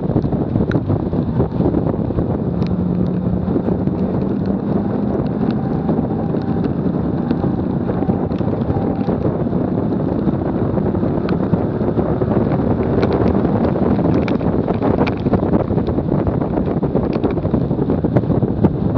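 Wind buffeting the microphone of a low bumper-mounted camera at track speed, over steady tyre and road roar from the car it is fixed to. A faint steady engine tone comes through a few seconds in, and small ticks are scattered throughout.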